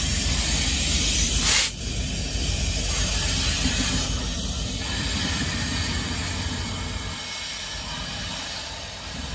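Rear diesel locomotives of a loaded BNSF coal train rolling past, engines running and wheels on the rails, under a steady hiss. A brief loud rush of noise comes about a second and a half in, and the sound fades as the locomotives move away.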